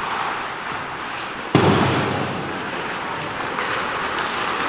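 Ice hockey rink noise with one sudden loud bang about a second and a half in, echoing briefly through the arena.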